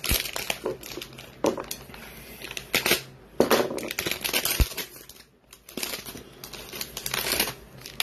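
Foil wrapper of a 2020 Playoff football card pack crinkling and tearing as it is ripped open by hand, in several irregular bursts.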